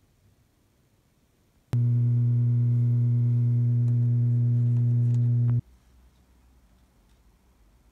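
A loud, steady low hum at one fixed pitch with many overtones. It starts abruptly about two seconds in and cuts off about four seconds later.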